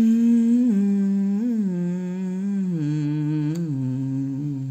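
A man humming a slow tune in long held notes that step lower in pitch toward the end.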